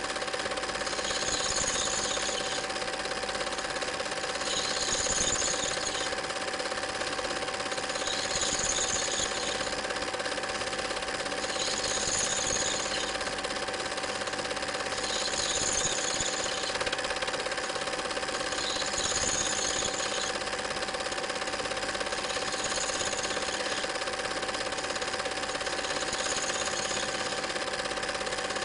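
A home-movie film projector running: a steady mechanical clatter and whirr, with a brief high hiss that comes back about every three and a half seconds.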